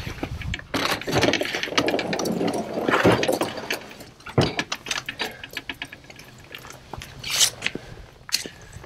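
A plastic fishing kayak being shifted on a wheeled kayak cart against a pickup's tailgate and bed. Its hull scrapes loudly for a couple of seconds, then there are scattered knocks and clicks from the hull and cart.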